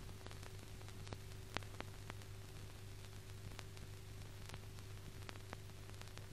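Faint steady hiss and low hum with scattered sharp clicks and crackles: the surface noise of an old optical film soundtrack, with no other sound over it.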